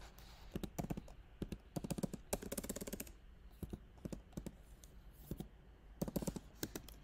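Computer keyboard being typed on: short, irregular keystroke clicks in small clusters as a number is entered into a spreadsheet cell.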